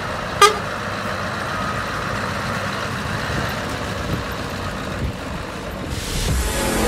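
Scania R620's V8 diesel engine running as the tractor unit pulls away, a steady low sound. About half a second in there is one brief, sharp, pitched sound, the loudest moment.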